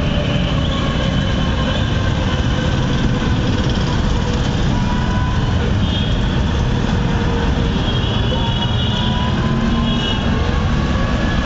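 Steady low rumble of a moving vehicle in city traffic, heard from on board, with faint high-pitched tones coming and going now and then.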